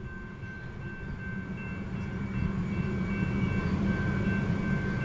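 Railroad grade-crossing warning bell ringing in a quick, even rhythm over a low rumble that slowly grows louder.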